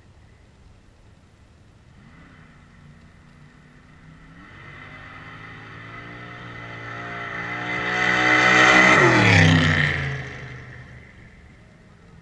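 A car accelerating hard down the drag strip, its engine climbing in pitch and loudness. It passes close about nine seconds in, with the pitch dropping sharply as it goes by, then fades away.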